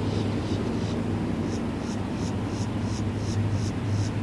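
Approaching Florida East Coast Railway diesel locomotives heard from a distance: a steady low engine drone. About a second and a half in, a rapid high chirping starts, about four chirps a second.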